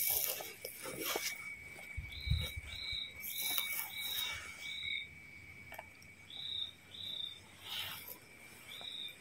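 Chirping insects outdoors: short high chirps repeated about twice a second in runs of several with pauses between, over a thin steady high-pitched drone, with a little rustling.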